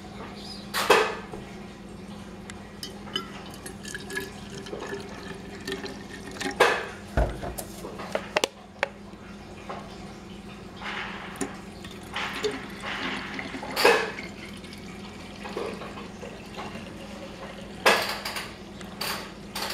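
Dyed water poured from a plastic bottle into a metal water bottle, splashing and filling it in stretches, mostly in the second half. Several sharp knocks and clinks of the bottles being handled come in between.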